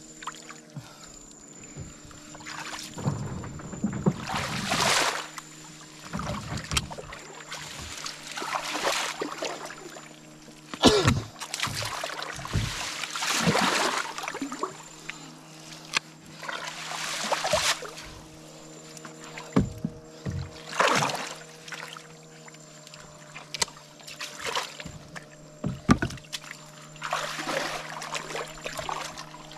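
Shallow muddy river water and mud splashing and sloshing in irregular bursts as a prawn trap net is worked by hand in the water, over a steady low hum.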